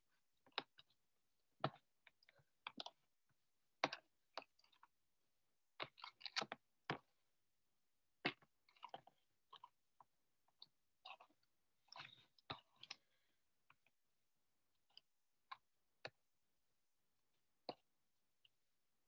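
Plastic spoon stirring thickening glitter slime in a clear plastic tub: quiet, irregular wet squelches and clicks of the spoon against the tub, coming thick and fast at first, then only now and then after about thirteen seconds.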